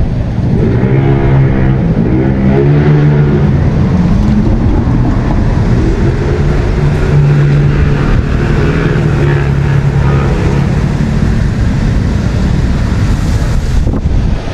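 Wind buffeting the microphone, with an engine droning at a fairly steady pitch from about half a second in until it fades out near eleven seconds.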